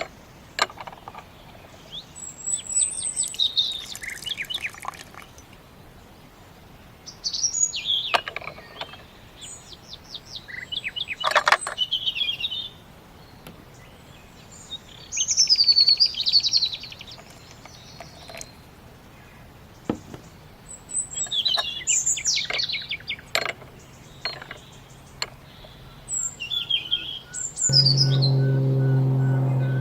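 Garden songbirds singing: short chirping and trilling phrases every few seconds, high-pitched. Near the end a steady low hum with several held tones comes in.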